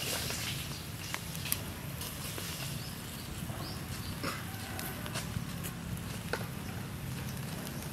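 Whole chicken roasting on a wire grill over charcoal: scattered sharp pops and crackles from the coals and dripping fat, over a steady low background.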